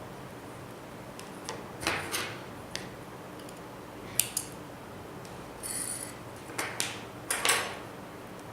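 Handling noises of a phone and double-sided adhesive tape being worked by hand: scattered short clicks, taps and scraping rustles over a steady faint hiss, loudest about two seconds in and again near the end.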